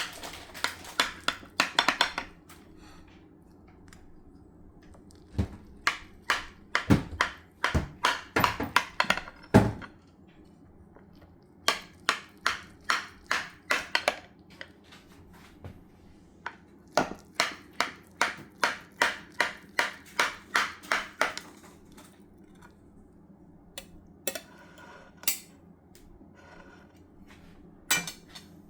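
Utensils clinking and knocking against a baking dish in runs of quick strokes, as the baked cauliflower is cut and served.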